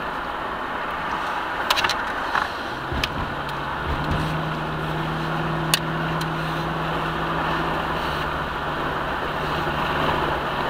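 Pickup truck driving, heard from inside the cab: steady road and engine noise. A low, even engine hum comes in about three seconds in and holds, with a few light clicks.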